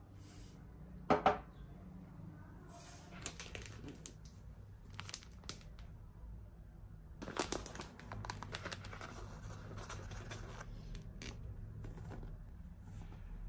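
Bag of oat flour crinkling as it is handled, in two stretches of dense crackling, with one sharp knock about a second in.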